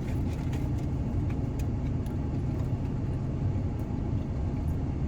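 Steady low rumble of an idling vehicle, with a few faint clicks.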